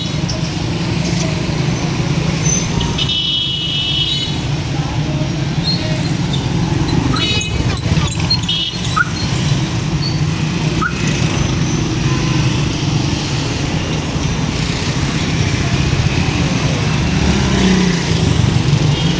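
Street traffic: cars and motorcycles running past at close range, a steady mix of engine noise that grows louder near the end as a motorcycle rickshaw passes close by.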